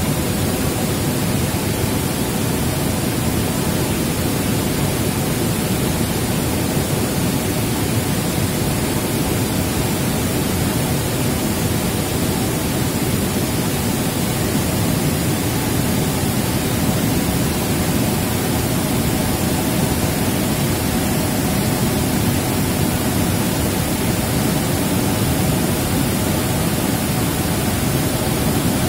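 A river in flood, its muddy water churning through rapids and spilling across a causeway, making a loud, steady rushing noise that does not let up.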